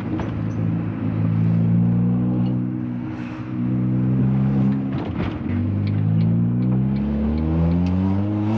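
Ford Fiesta's 1.6 Zetec S four-cylinder engine running through a Hornet cat-back race exhaust as the car accelerates. The revs climb, a gear change about five seconds in drops them, and they rise steadily again.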